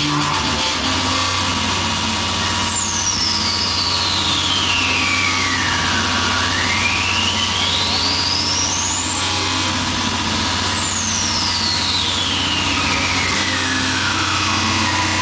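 Harsh electronic speedcore music from a club sound system: a dense, noisy drone over a steady low hum, with a high tone that slowly sweeps down and back up, twice.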